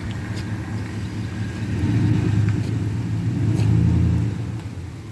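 A motor vehicle's engine running with a steady low rumble, swelling louder about two seconds in and again near four seconds before easing off.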